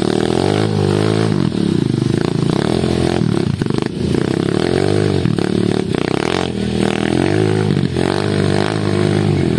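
Trail motorcycle engine running under load, its revs rising and falling over and over, about every second or two, as the bike is ridden over rough ground.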